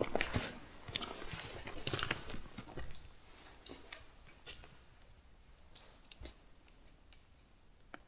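Footsteps crunching and clicking on loose rock underground, busy and close for about three seconds, then thinning out to scattered faint clicks.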